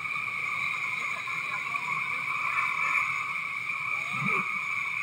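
Steady rushing of whitewater rapids around a raft.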